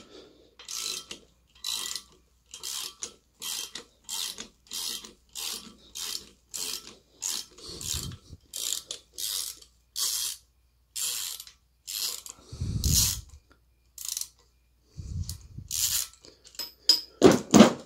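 Ratcheting wrench clicking in quick repeated strokes, nearly two a second, as it turns the centre bolt of a harmonic balancer puller on a Ford Essex V6 crankshaft, drawing the balancer off. A few dull thumps come in among the strokes.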